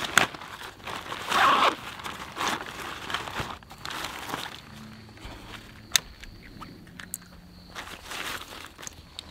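Rustling and crinkling of nylon stuff sacks and a backpack as gear is rummaged through and pulled out, loudest in the first couple of seconds, with a sharp click about six seconds in.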